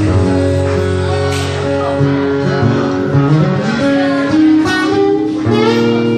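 Two acoustic guitars played live: strummed chords changing every second or so, with some picked, sliding single notes over them.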